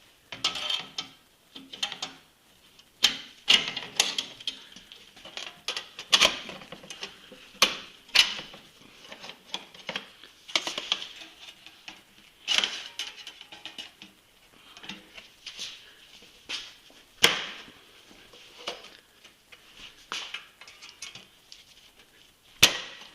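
Hand tools and metal snowmobile parts clinking, rattling and scraping in irregular bursts, with a few sharper metallic knocks, as parts are worked loose near the chain case.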